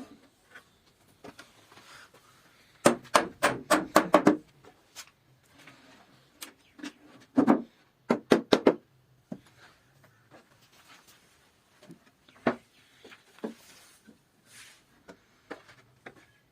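Sharp knocks on wood from hand tools at work: a fast run of about eight taps about three seconds in, another loud cluster around seven to nine seconds, then scattered lighter taps.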